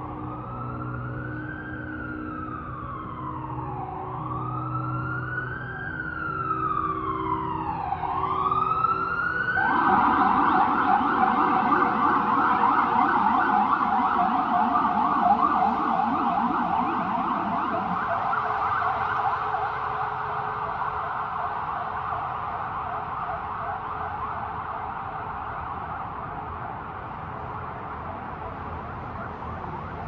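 Emergency vehicle siren on a city street: a slow wail rising and falling every two seconds or so and quickening. About ten seconds in it switches to a fast yelp, which is loudest just after the switch and then slowly fades.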